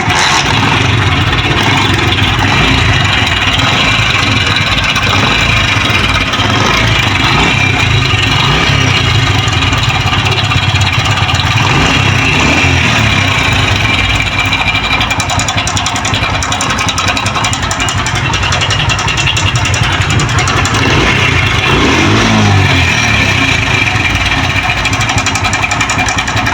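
Honda CD 70's single-cylinder four-stroke engine running with a harsh mechanical noise from a worn, slack timing chain. It is revved up and back down briefly about 21 to 23 seconds in.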